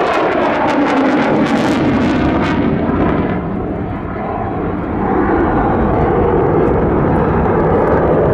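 Mitsubishi F-2 fighter's single jet engine roaring loudly as the jet pulls a high-g turn during a display. The roar is harsh and crackling for the first couple of seconds, fades a little about four seconds in as the jet turns away, then swells again.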